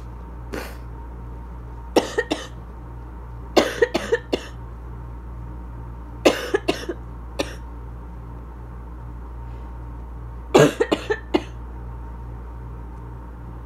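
A person's asthma cough, coming in fits: one faint cough, then four fits of three to five sharp coughs each, a few seconds apart, over a steady low hum.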